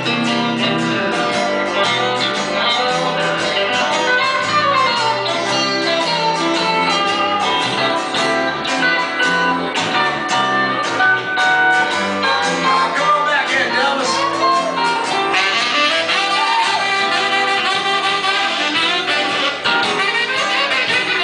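Live band playing, with guitar and bass under a saxophone.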